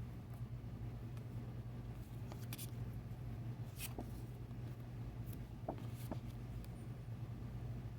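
Paper cards being handled: a few short, light rustles and clicks scattered through the middle, over a steady low hum.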